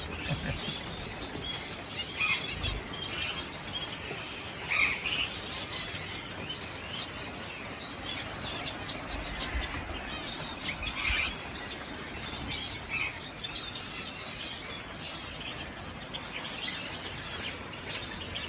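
Weaver birds chirping, many short scattered calls overlapping.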